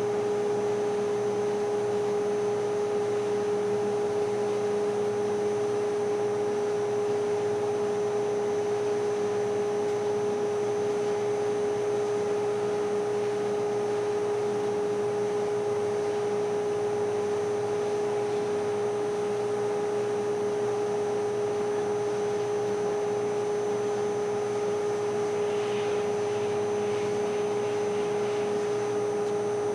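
Steady, unchanging machine hum at one constant pitch, with faint higher whining tones above it.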